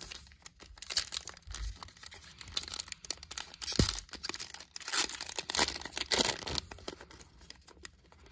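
Foil wrapper of a Panini Phoenix football card pack crinkling and tearing as it is ripped open by hand, in a run of irregular crackly bursts that are loudest around the middle.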